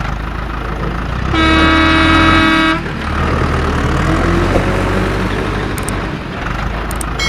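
Heavy vehicle engine running steadily at a low pitch, with one long horn toot from about a second and a half in lasting over a second; another horn toot starts at the very end.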